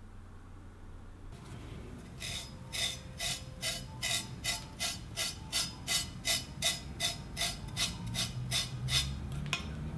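A sharp steel chef's knife blade shaving hair off a bare forearm: a quick run of short, crisp scraping strokes, about two to three a second, starting about two seconds in. This is a test of how sharp the edge is.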